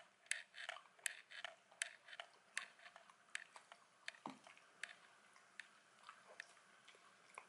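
Dachshund chewing and crunching food: crisp crunches, several a second at first, thinning out in the second half.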